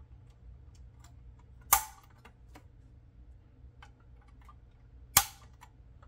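Two sharp snaps, about three and a half seconds apart, as the small headlight lenses of a Tonka toy bulldozer are pressed one by one into its sheet-steel grille. Faint clicks of handling fall in between.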